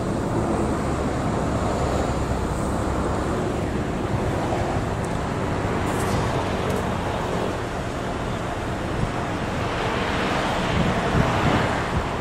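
Wind buffeting the microphone: a steady rushing noise with a low rumble, swelling slightly about ten seconds in.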